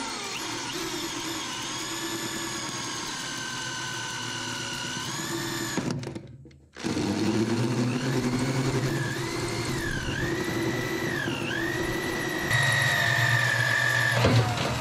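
Hand-held drill running a 1-inch hole saw through the sheet-steel top of a dozer's fuel tank. The motor whines steadily, stops briefly about six seconds in, then starts again. After the restart its pitch dips several times as the saw bites.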